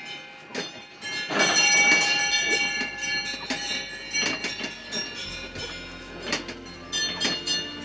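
Cowbells clanging irregularly, each strike ringing on, over a low sustained musical drone that comes in about two seconds in and steps up near the middle.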